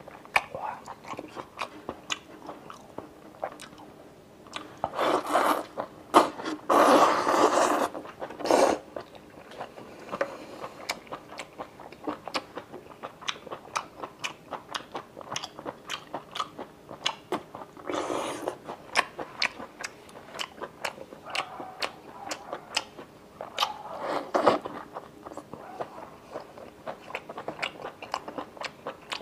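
Close-miked chewing of rubbery octopus, with a steady run of wet mouth clicks and smacks. A few louder, noisier bursts come about five to nine seconds in, again around eighteen seconds, and around twenty-four seconds.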